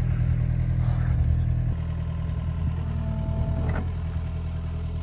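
John Deere 50G compact excavator's diesel engine running steadily as it works its arm, the engine note dropping slightly about two seconds in, with a brief faint whine later on.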